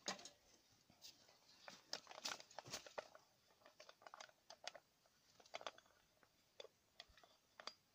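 Faint scattered clicks and crinkles of a plastic bottle being handled and its cap twisted open.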